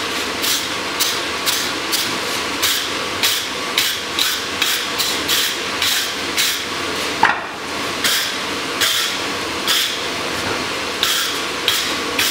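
Hand hammer blows on hot steel, driving a drift through the hardy hole of a striking-anvil block, about two strikes a second with a brief pause near the middle.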